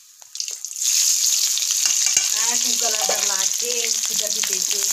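Chopped ingredients frying in hot oil in a metal kadai (wok), a loud steady sizzle that starts suddenly about a second in.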